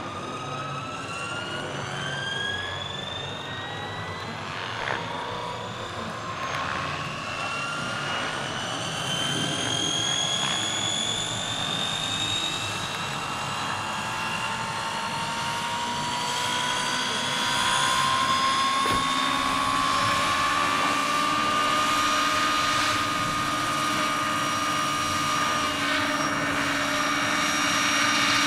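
Large scale model EH101 helicopter with electric drive spooling up: a steady whine rising slowly in pitch and getting louder as the rotors speed up.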